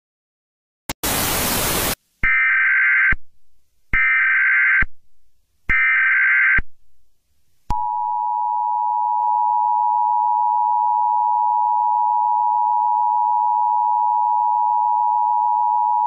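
Emergency Alert System broadcast tones announcing an Emergency Action Notification: a second of hiss, then three short warbling bursts of SAME header data about a second apart, then the two-tone EAS attention signal (853 and 960 Hz) held steady for about eight seconds before cutting off.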